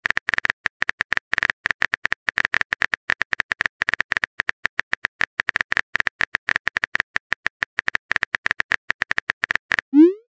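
Rapid clicking of a phone keyboard typing sound effect, many clicks a second, as a text message is typed. Near the end, a short rising swoop, the message-sent sound.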